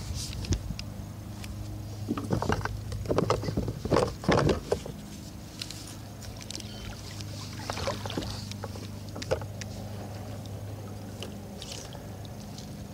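Water sloshing and splashing against a kayak hull, with knocks and handling noise on the hull, over a steady low hum. The splashes and knocks bunch together between about two and five seconds in, with a few more sharp clicks later.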